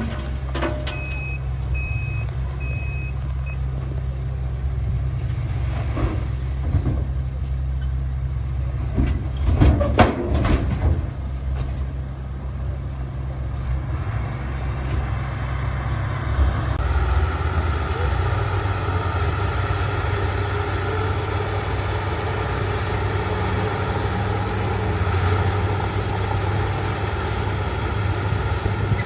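Heavy diesel engines of a bulldozer and dump truck running steadily, with a reversing alarm giving about five short high beeps early on. A few clanks come near the middle, and the engine note grows fuller and louder about two-thirds of the way through, as under load.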